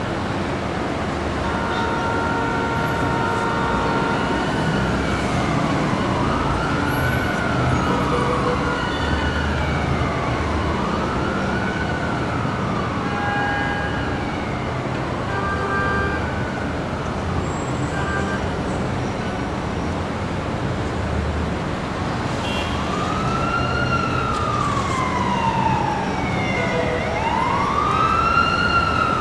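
Busy city street traffic with an emergency-vehicle siren wailing, its pitch rising and falling about every two seconds; the siren fades out midway and comes back louder near the end. About two seconds in, a steady two-note tone sounds for a couple of seconds.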